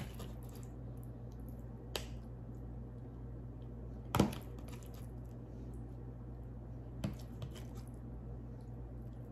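A metal spoon clicking against a plastic cup as Jell-O cubes are spooned in: four sharp clicks, the loudest about four seconds in, over a steady low hum.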